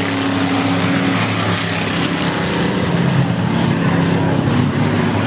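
Several bomber-class stock car engines running hard together as the cars race around a dirt oval, their steady pitches overlapping over a constant rush of noise.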